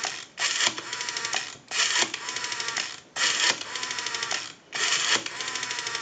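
Rotary dial of an antique candlestick telephone being dialed digit after digit, four times: each pull-around is followed by the dial spinning back with a run of rapid, even pulse clicks, about ten a second. Each click train is the dial pulsing out one digit on the line.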